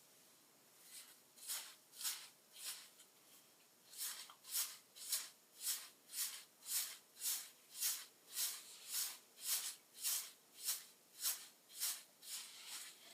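Hair being combed in quick repeated strokes, each a short brushing swish. A few scattered strokes come first, then a steady run at about two strokes a second that stops just before the end.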